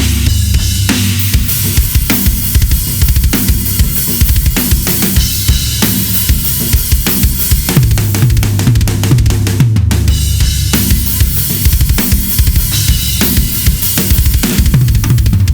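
Gretsch USA Custom drum kit (22x16 kick, 12x8 rack tom, 16x16 floor tom, 14x5.5 chrome-over-brass snare) played as a whole kit with Sabian cymbals: a busy stream of kick, snare, tom and cymbal strokes. The toms ring and drop in pitch after each hit, with a brief break about ten seconds in.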